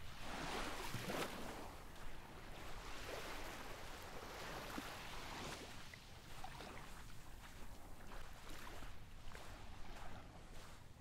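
Wind rumbling on the microphone over a steady rushing hiss of wind and distant surf, gusting a little louder in the first second or so.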